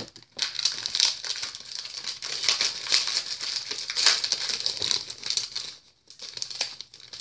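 Crinkling and rustling of sheets and packaging being handled, with many small clicks and taps, dying down to a few scattered clicks near the end.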